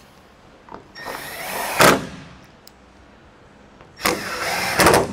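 Cordless impact driver with a Torx bit driving T25 Torx screws into a truck's fuel-door surround. Two short runs, about a second in and about four seconds in, each about a second long.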